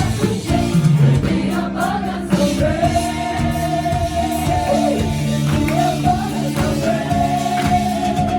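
Live gospel worship music: singers holding long notes over a band, with tambourine.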